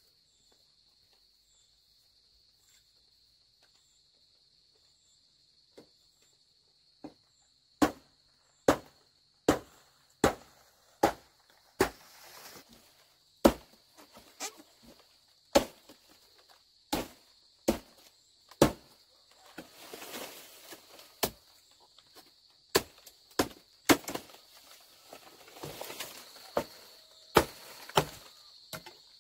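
Bamboo being chopped with a blade: sharp strokes begin about eight seconds in and go on irregularly, roughly one a second, some twenty in all, with softer noisy stretches between some of them.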